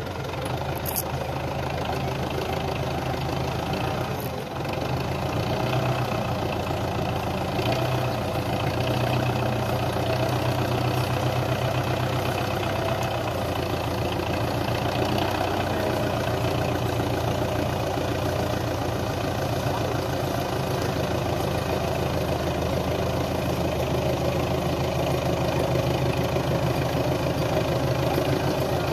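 Belarus tractor's diesel engine running steadily, a little louder from about five seconds in.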